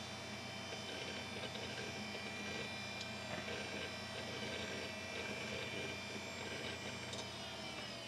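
Old desktop computer's cooling fans and hard drive running with a steady hum and whine. Near the end they wind down, falling in pitch, as the machine powers off at the end of shutdown.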